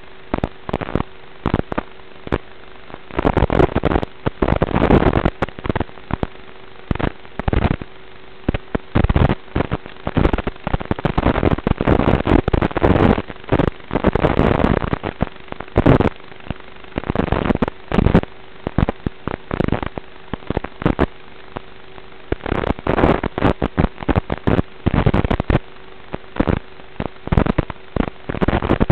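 Crackling static from an analog FPV video receiver's audio channel: irregular bursts of crackle over a steady hiss, with a faint steady tone underneath for about the first half.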